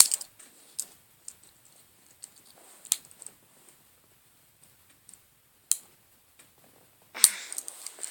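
Scattered sharp clicks and light scrapes of metal on metal, about five louder ones spread over several seconds, as the Phillips screwdriver tool is pried out of a Victorinox Swiss Army knife.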